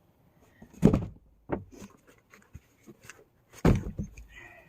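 Cardboard box being handled and set down: two heavy thumps, about a second in and near the end, with lighter knocks and rustling between.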